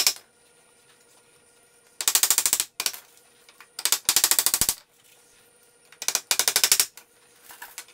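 Hammer driving nails through a steel mending plate into a 2x4 wooden frame: bursts of quick, rapid metallic taps, one burst about every two seconds.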